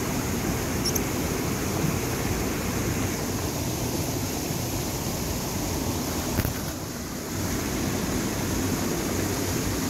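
Steady rush of a shallow stream running over rocks, with wind on the microphone.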